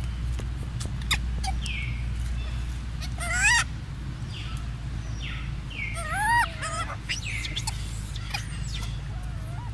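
Infant macaque crying with high, wavering squeals. The two loudest come about 3.5 s and 6 s in, with fainter ones near the end.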